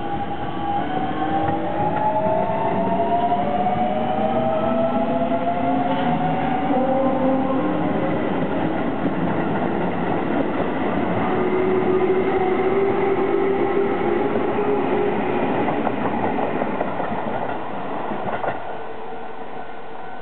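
Keio 8000 series electric train accelerating away from a station stop: its VVVF inverter and traction motors whine in several tones that rise in pitch over the first eight seconds, over the rumble of wheels on rail as the cars pass. The sound drops away near the end as the last car clears.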